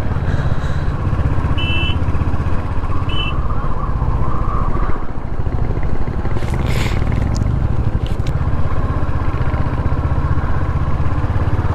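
Royal Enfield Hunter 350's single-cylinder engine running steadily under way, with wind and road noise. Two short high beeps come about a second apart a couple of seconds in, and a brief hiss about seven seconds in.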